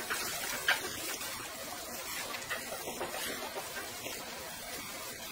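Gloved hands mixing a mayonnaise-dressed salad in a plastic tub: soft wet squelching and rustling, with a sharper click about a second in.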